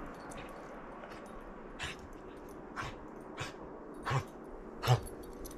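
A dog making five short, sharp vocal sounds, irregularly spaced from about two seconds in, the last two loudest, over a steady background hiss.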